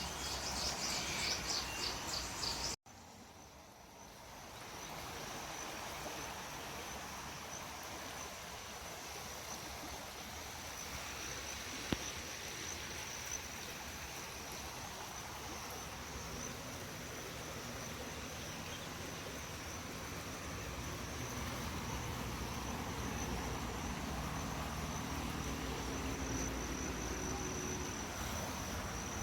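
Insects chirring in one steady, high-pitched band over faint outdoor background noise; the sound briefly drops out about three seconds in.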